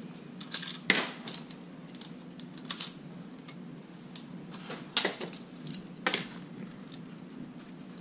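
Small plastic clicks and taps of a Kwikset keyless deadbolt's housing being handled and pulled apart by hand, with the sharpest clicks about five and six seconds in.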